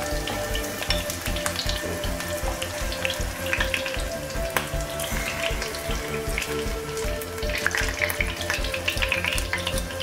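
Shrimp fritter batter frying in hot extra virgin olive oil in a small nonstick pan: steady sizzling with crackles, which get busier near the end.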